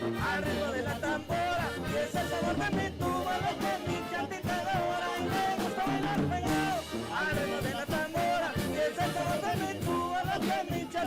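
Band playing an upbeat tune led by brass instruments over a steady beat.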